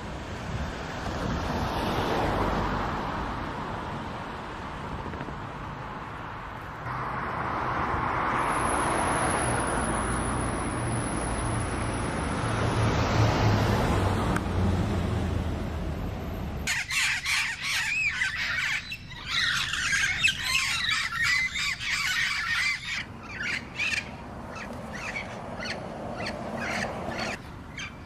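A steady rushing noise, then, from about the middle on, a flock of wild parrots squawking and screeching in many harsh, wavering calls that thin out near the end.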